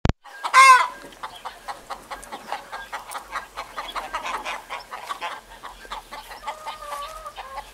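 Chickens clucking and calling steadily, with one loud call about half a second in and a longer held call near the end.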